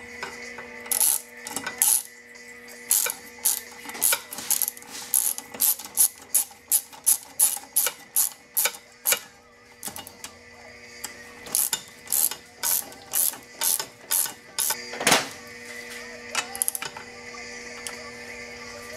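Socket ratchet wrench clicking in quick back-strokes, about two a second, as nylock nuts are run down onto the water pump housing studs of an outboard lower unit. There is a short pause partway through and one louder clack near the end.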